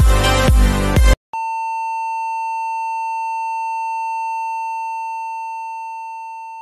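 Electronic dance music with a heavy, regular beat cuts off about a second in. After a brief gap a steady test-tone beep, the kind played with TV colour bars, sounds at one unchanging pitch and slowly fades toward the end.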